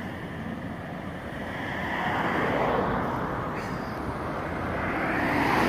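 Road traffic going by: two slow swells of passing-vehicle noise, about two seconds in and again near the end.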